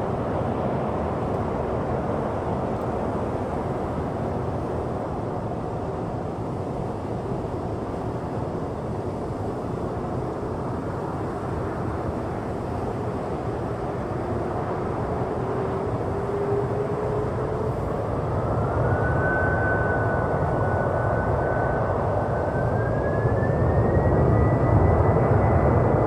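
Four-engine Boeing 747-400F freighter's jet engines running, with a whine that climbs in steps in the last third as the engines spool up, the sound growing louder toward the end: thrust coming up for takeoff.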